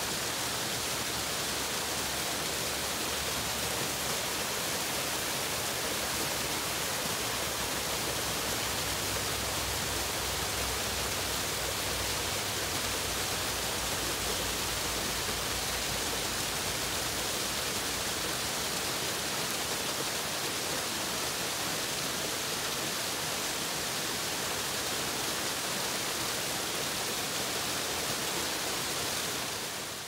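Thin waterfall cascading down a rock face: a steady rushing hiss of falling water.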